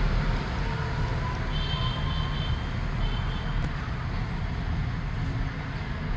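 Steady low background rumble, like distant road traffic, with a few faint short high tones about one and a half to three seconds in.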